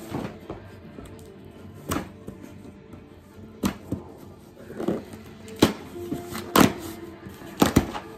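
An Amazon delivery package being opened by hand, its packaging giving about six sharp crackles. Music plays quietly underneath.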